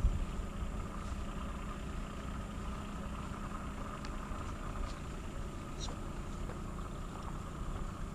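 An engine running steadily at idle: an even low rumble with a few faint clicks over it.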